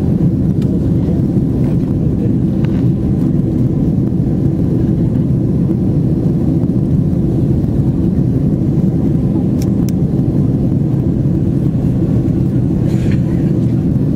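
Steady, loud cabin roar of a Boeing 767-300ER in its climb after takeoff: engine and airflow noise heard from inside the passenger cabin.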